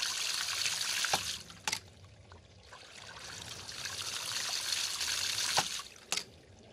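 Homemade waste valve of a 5/4-inch ram pump cycling. Water rushes out of the open valve, then the valve slams shut with two sharp knocks about half a second apart. This happens twice, and the rush of water builds up again between the closings.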